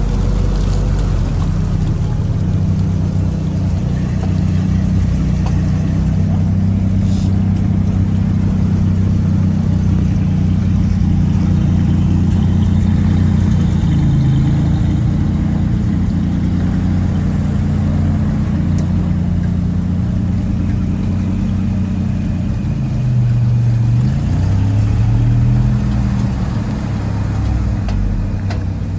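Vintage flatfender Jeep engine running steadily. Its pitch dips and rises with the throttle around the middle and again near the end.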